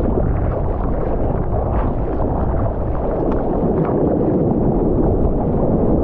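Close, loud rush of churning water and spray against a surfboard moving through the sea, heard from a camera on the board, with a deep rumble underneath.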